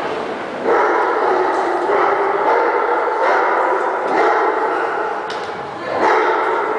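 A dog barking and yipping in a rapid, nearly unbroken string, with louder surges every second or so.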